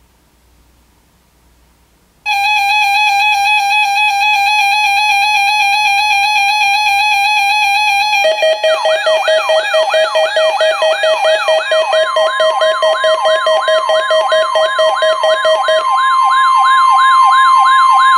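Electronic emergency-alert tones. About two seconds in a steady, buzzy tone starts abruptly. About eight seconds in a fast wailing siren tone, rising and falling about three times a second, joins it with a lower steady tone, and a higher steady tone is layered on near the middle.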